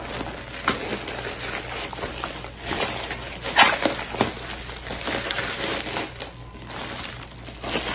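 Plastic mailer bag and bubble wrap crinkling, rustling and tearing as a parcel is unwrapped by hand, in irregular crackles with the loudest burst about halfway through.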